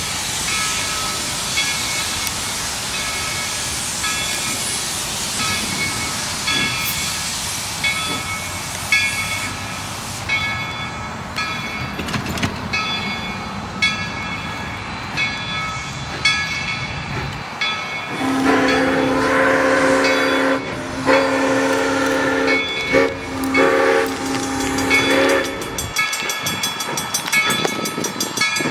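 Steam locomotive departing: a steady steam hiss under a bell ringing evenly, a little faster than once a second. About two-thirds of the way in, the locomotive's steam whistle sounds a long chord for about seven seconds, with a couple of brief breaks.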